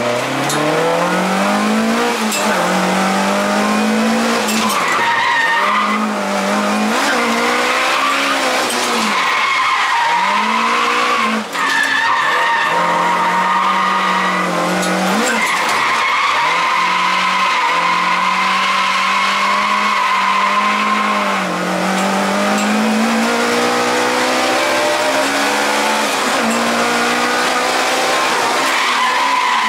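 Toyota AE86's dry-sump 4A-G twin-cam four-cylinder engine, heard from inside the cabin, revving up and down again and again under hard driving, with a brief drop in revs about a dozen seconds in. Tyres squeal as the car slides. The owner feels it revs poorly at the top end because part of the exhaust's middle section is 50 mm pipe.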